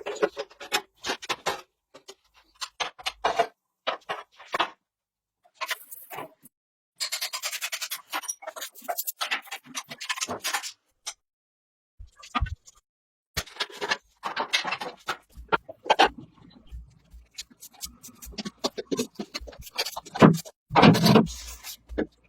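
Repeated scraping and rubbing strokes, coming in irregular bursts with short pauses, with a longer, denser run of scraping in the middle.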